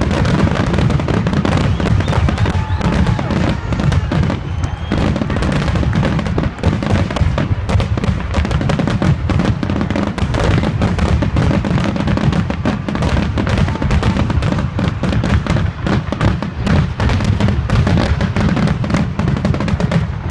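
Fireworks going off in a rapid, continuous barrage of booms and crackles, with no pause between bursts.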